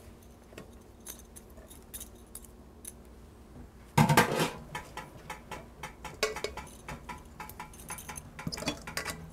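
Metal kitchenware clinking and scraping as leftover mashed potato is gathered from a stainless steel bowl for the potato ricer. Light scattered ticks, one loud metallic clank about four seconds in, then a run of lighter clinks.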